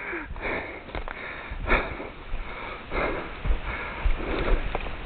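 A person breathing hard and fast close to the microphone, a quick run of breaths in and out, with a few sharp snaps of twigs underfoot.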